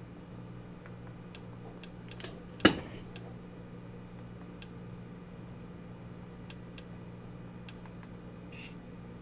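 Computer mouse buttons clicking a dozen or so times, with one much louder click about two and a half seconds in, over a steady low hum.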